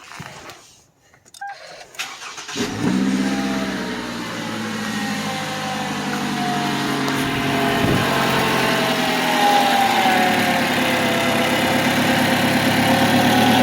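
Toyota AR-series four-cylinder engine starting about two and a half seconds in, then idling high with its pitch easing slowly down. It runs with the drive belts off, so the water pump is not turning, and it sounds just like a regular 4-cylinder, without the rotating noise of the worn water pump pulley.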